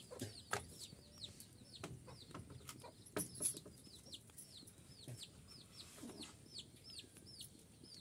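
Small bird chirping over and over: short, high, downward-falling chirps, two or three a second, with a few sharp clicks among them.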